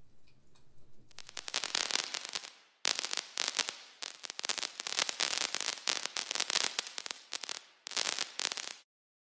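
Crackling wood fire: a dense run of snaps and pops that builds over the first couple of seconds and stops abruptly near the end.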